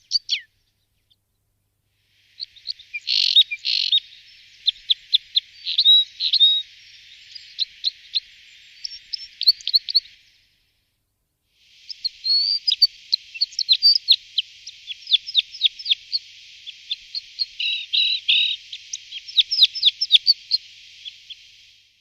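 Red crossbill calling: many short, sharp chirps in rapid runs with a few brief trills, in two stretches with a gap of silence of about a second and a half between them.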